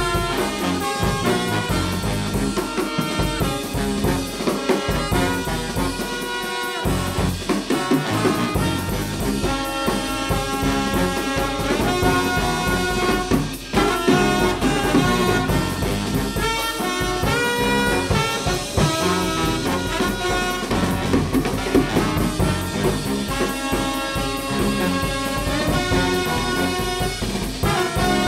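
A jazz big band playing a swing number live: the brass section, trumpets and trombones, plays ensemble lines over a driving drum kit, with a brief break about halfway through.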